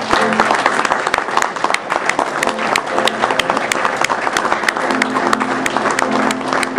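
A room full of people applauding, with dense, irregular clapping throughout. Music with held notes plays underneath.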